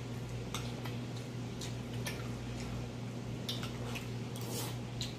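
Close-miked eating: scattered light clicks of a metal fork and spoon against glass plates and of mouth noises while chewing, at irregular spacing, over a steady low hum.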